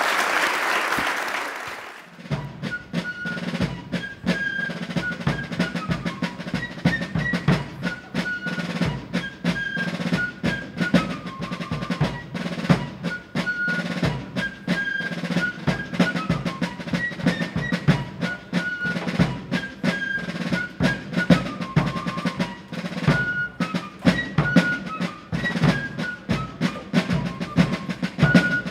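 Applause dying away over the first two seconds, then a fife and drum corps playing: fifes carrying a melody over snare drums and a bass drum.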